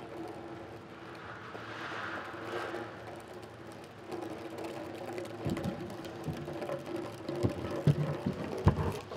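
Soft, irregular thumps and knocks on a stage, sparse at first and then louder and more frequent over the last few seconds, over a faint steady hum.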